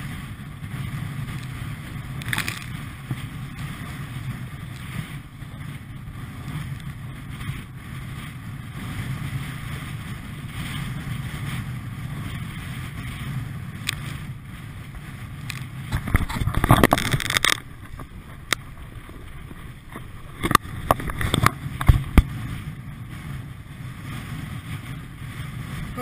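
Wind buffeting the microphone over choppy water sloshing around a pedal kayak, a steady low rumble. A loud burst of splashing comes a little past halfway, then several sharp slaps of spray or waves a few seconds later.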